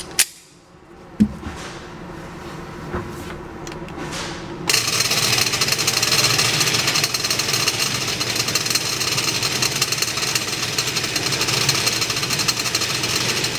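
Two sharp knocks near the start. Then, about five seconds in, a shooting range's motorised target carrier starts a steady mechanical rattle that runs for about nine seconds, carrying the paper target out to 15 yards.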